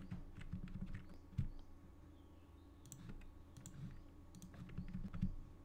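Irregular, scattered clicking of a computer mouse and keyboard keys as a Blender user works a keyboard shortcut (Alt+S) and drags vertices.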